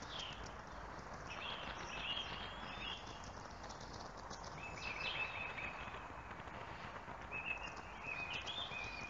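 Songbirds singing faintly in short, high chirping and trilling phrases, three bursts of song in all, over a steady outdoor hiss.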